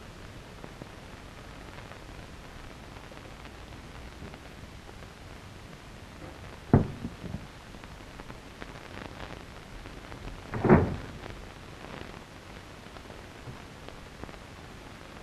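Steady hiss of an old 1930s film soundtrack, with a sharp knock about seven seconds in and a louder, slightly longer thud near eleven seconds.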